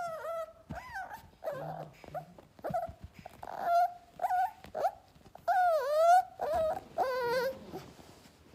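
Smoodle puppy whining and yipping: a string of short, high-pitched cries, with a few longer ones that dip and rise in pitch, the loudest about six seconds in.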